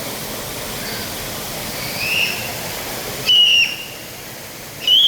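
Two loud, clear high-pitched whistles, a short one and then a longer steady one, after a fainter rising whistle, over a steady rushing hiss that cuts off abruptly about three seconds in.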